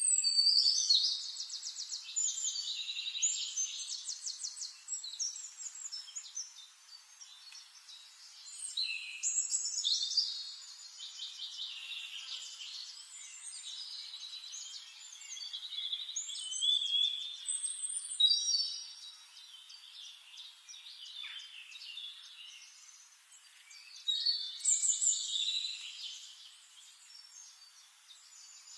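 Songbirds singing in a forest: several bouts of rapid, high-pitched warbling and trilling song, separated by quieter gaps of a few seconds.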